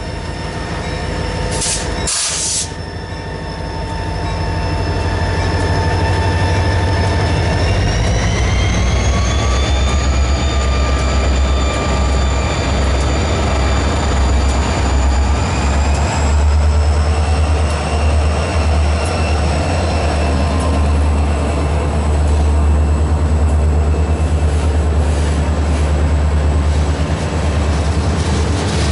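Two CSX GP40 diesel-electric locomotives, each with a turbocharged EMD 16-cylinder engine, passing close by with a deep steady rumble, followed by freight cars rolling past. A high whine rides over the rumble and rises in pitch about eight seconds in and again around sixteen seconds.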